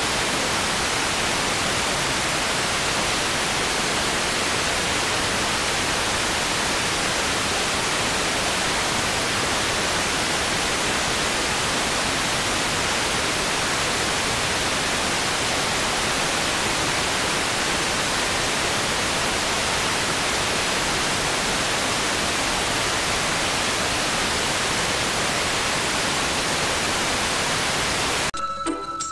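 Steady, loud static-like hiss with no pattern in it, cut off near the end as music comes in.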